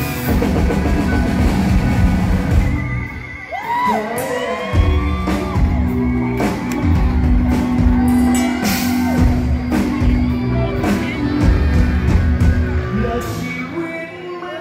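Rock band playing live in a large hall: electric guitars, bass and drums.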